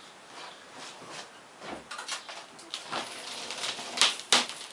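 Irregular scraping and clicking of a hand tool working at a car windshield's edge while the glass is being cut out, with one sharp click about four seconds in.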